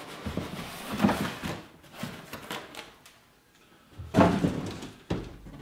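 Cardboard boxes being handled: the printed outer box scraping as it slides up off the plain inner cardboard box, with a few knocks as the boxes are shifted and set down, the loudest about four seconds in.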